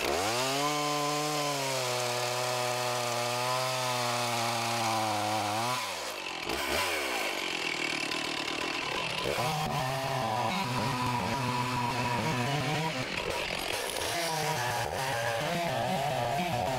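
Two-stroke chainsaw brought up to full throttle and cutting through a log, its pitch holding steady under load. About six seconds in the revs fall away to idle. Near ten seconds they climb again for the next cut, the pitch wavering as the pressure on the saw varies.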